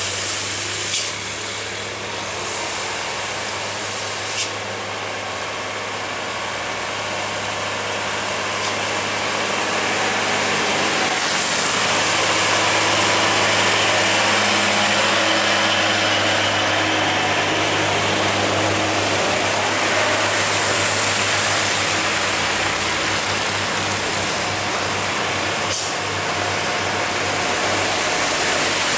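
Heavy diesel trucks, among them Hino trucks, climbing a hill slowly with their engines running under load. Their tyres hiss on the wet road, the hiss swelling and fading as trucks pass. Two short clicks come about one and four seconds in.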